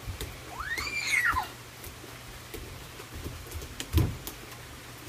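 A young child's single high squeal that rises and falls in pitch, over a steady hiss of rain; about four seconds in, one sharp thump.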